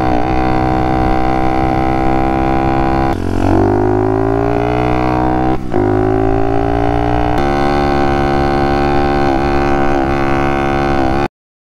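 Small four-stroke engine of a 110cc pit bike pulling under way. Its note drops with a gear change about three seconds in and then climbs as the bike accelerates. It dips again briefly near six seconds before climbing on. The sound cuts off suddenly just before the end.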